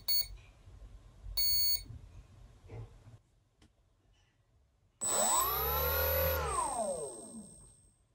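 A ZOHD MK2 30A ESC sounds a short beep about a second and a half in. From about five seconds in, the brushless motor spins the propeller up and back down over roughly three seconds, its pitch rising then falling, with a high steady whine from the ESC above it.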